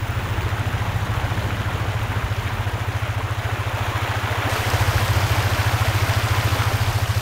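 Cartoon helicopter sound effect: a steady, fast rotor chop. About four and a half seconds in, a rushing hiss joins it as water pours from the slung bucket.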